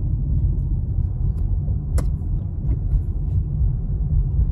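Steady low rumble of a car driving, heard from inside the cabin: tyres on the road and the engine. A single sharp click about two seconds in, with a few fainter ticks around it.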